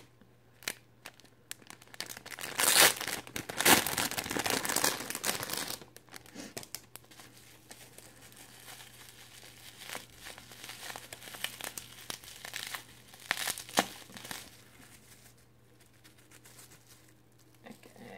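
Clear plastic packaging bag crinkling and rustling as it is handled and worked open, loudest in a burst of a few seconds early on, then lighter intermittent crinkles that die away.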